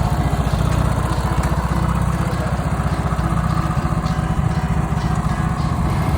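Petrol lawn mower engine running steadily with a fast, even chugging.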